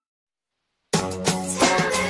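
Silence, then background music with a steady drum beat starts abruptly about halfway through.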